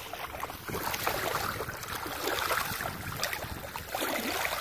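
Water rushing and splashing along a small sailboat's hull while under sail, with wind buffeting the microphone.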